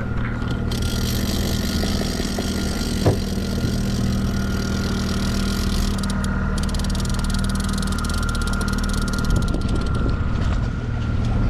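Power boat's engine running steadily at trolling speed, with a constant hum and a steady high whine. A hiss rises over it for most of the stretch, and there is a single sharp click about three seconds in.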